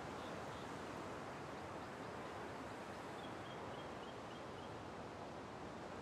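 Steady, even wash of small surf breaking on a tropical beach. A faint short series of high bird chirps comes about halfway through.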